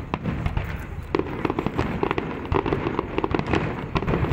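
Aerial fireworks going off: sharp bangs and pops, turning into a dense rapid crackle from about a second in.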